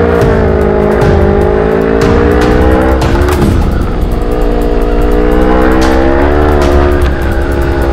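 Kawasaki Ninja 250 FI parallel-twin engine running under way, its pitch dipping about three seconds in and rising again with the throttle near the end, over a steady wind rumble on the helmet microphone.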